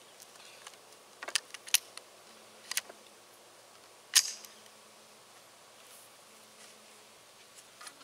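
Sharp metallic clicks of a custom Ruger 10/22 .22 rifle being handled and readied on the shooting rest: a handful of clicks in the first three seconds, then one louder clack about four seconds in as the action is worked. No shot is fired.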